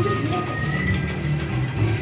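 Background music track.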